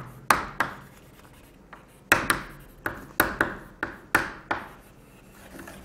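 Chalk writing on a blackboard: sharp chalk taps and short scrapes as letters are written, two at first, then after a short pause a quick run of about ten.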